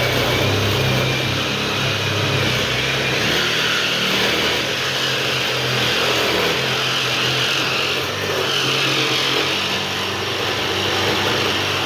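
Power drill running steadily under load, cutting a round hole in the ceiling for a 6-inch pot light.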